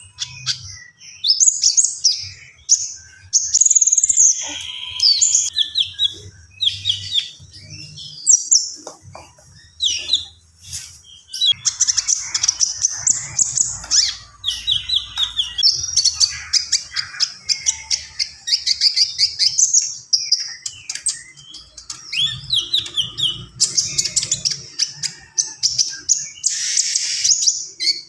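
A konin songbird singing vigorously in a long, varied run of rapid chirps, trills and short whistled phrases. This is the bird's full repertoire of imitated song ('full isian').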